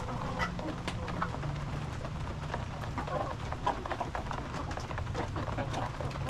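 Pigeons cooing, a low steady murmur, with scattered small ticks and taps over it.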